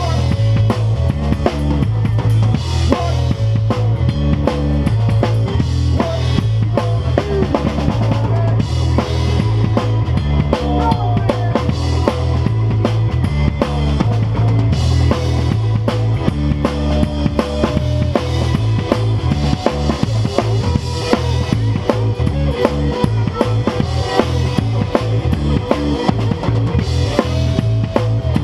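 Live rock band playing a song: drum kit with bass drum and snare keeping a steady beat under a heavy electric bass line, with electric guitar on top.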